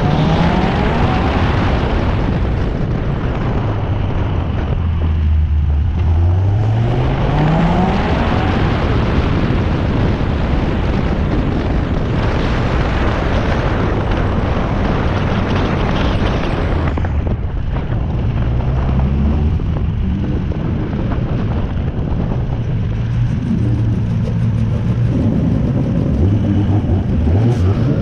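Onboard sound of a drift car's engine revving hard. It rises in pitch as the car accelerates just after the start and again around six seconds in, then is held at high revs as a loud, rough exhaust roar. About seventeen seconds in the driver lifts off, and the engine drops to low revs, running steadily as the car rolls slowly.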